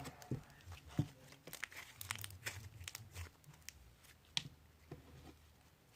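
Green glitter bead slime being worked by hand, its beads giving irregular sharp crackles and clicks, with one louder click a little past the middle.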